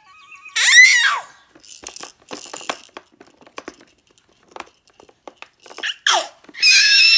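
Baby squealing in high-pitched shrieks: a loud squeal falling in pitch about half a second in, a short one near six seconds and a longer one near the end, with scattered clicks and rattles in between.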